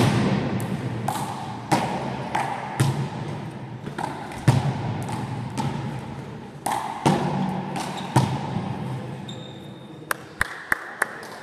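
Handball rally: a small rubber ball slapped by hand, cracking off the wall and bouncing on the hall floor, a sharp echoing smack every half second to a second. Near the end a few quick, lighter bounces as the ball dies.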